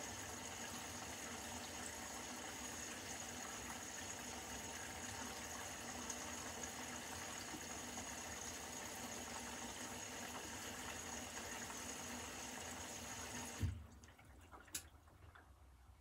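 Beko front-loading washing machine taking in water: a steady rushing hiss of the fill that cuts off suddenly with a thump near the end, followed a second later by a single click.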